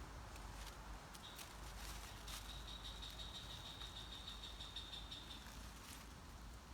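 Faint forest ambience: a low rumble of wind on the microphone, a few light clicks, and a thin high trill that holds steady for about four seconds.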